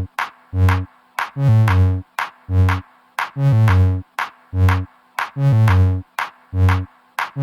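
Electronic dance music: a drum-machine beat with deep synth bass notes about once a second and a steady synth tone held underneath.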